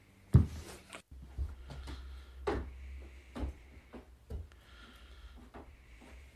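One loud thump about a third of a second in, then a few softer knocks and bumps, from a person moving about and climbing onto a bed and a chair, over a low steady hum.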